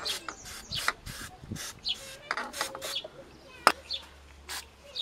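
Short, uneven metal scraping and rubbing strokes as the old tie rod end is worked off the Opel Corsa C's steering rod, with a sharper click about three and a half seconds in.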